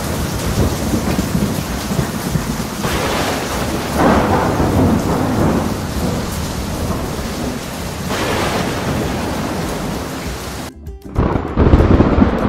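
Thunderstorm sound effect: steady heavy rain with rolling thunder that swells about three, four and eight seconds in. Near the end it cuts out briefly, and then a loud rumble starts.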